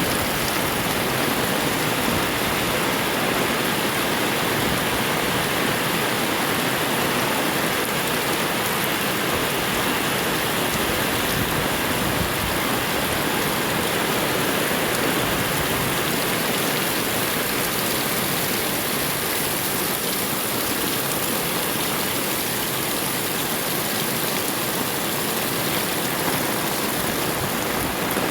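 Heavy rain pouring down in a steady, dense hiss with no let-up.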